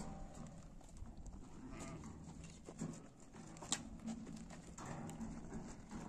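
Livestock calling a few times, with scattered sharp clicks; the loudest click comes a little past halfway.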